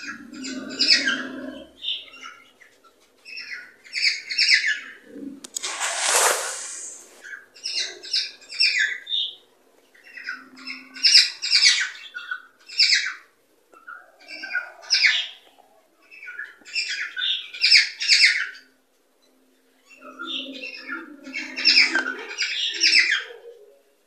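Cockatiels chirping and warbling in a string of short, fast phrases with brief pauses between them, and one noisy, scratchy squawk about six seconds in.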